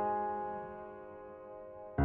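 Soft instrumental background music: a held piano chord slowly fading away, with the next chord struck at the very end.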